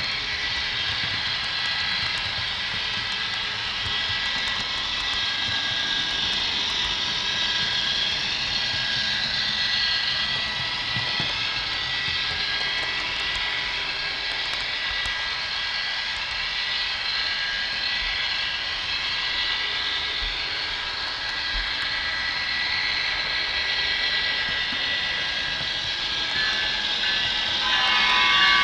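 Model train of Kato Amtrak Superliner cars running on a layout's track, heard from a camera riding on the train: a steady rushing of the wheels on the rails with a thin whine. It grows a little louder near the end, with more whining tones.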